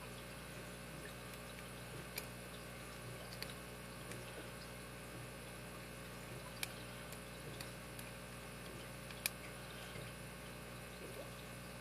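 A few faint, sparse metallic clicks as lock picks are tried and handled at the tiny keyway of a small brass or bronze Master Lock padlock, with one sharper click about nine seconds in, over a steady low electrical hum.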